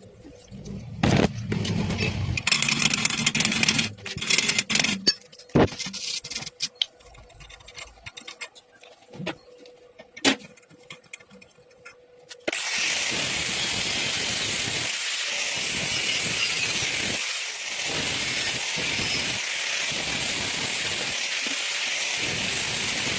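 Welding arc crackling steadily for about ten seconds, starting about halfway in. Before it come sharp clicks and short noisy bursts over a faint steady hum.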